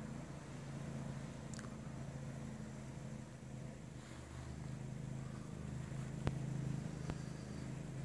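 A steady low mechanical hum, like an engine or motor running, with two sharp clicks near the end.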